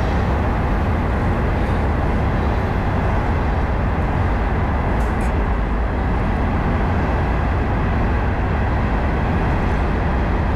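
Steady rumbling roar of nearby road traffic, heaviest in the low end and unchanging throughout.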